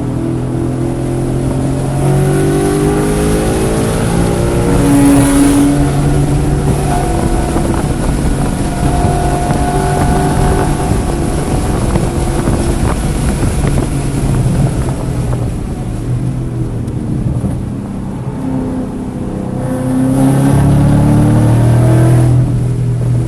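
Race-track car engine under load, revving up and easing off through corners, its pitch climbing early on, sagging through the middle and climbing again near the end. The engine is misfiring in cylinders 1, 3 and 4, setting the check engine light blinking.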